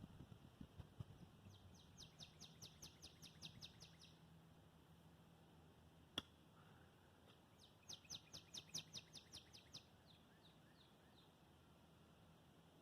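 Bird trilling: two quick runs of high chips, each lasting about two seconds and a few seconds apart. A single sharp click falls between the runs, and a few faint low knocks come in the first second.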